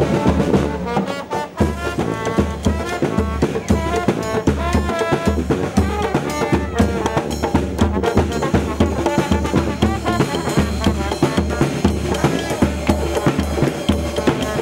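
Brass band playing a lively tune: sousaphone, trombone and trumpet over a steady drum beat.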